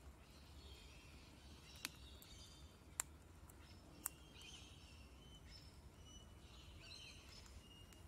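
Faint chirps and twitters of small birds in the background. Three sharp clicks, about two, three and four seconds in, are the loudest sounds.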